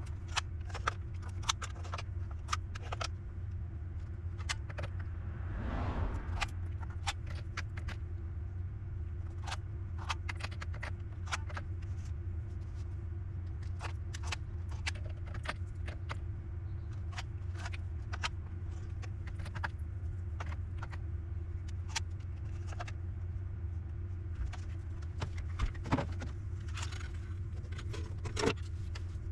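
Steady low hum with many short, sharp clicks and taps scattered throughout, like small hard parts being handled on a workbench.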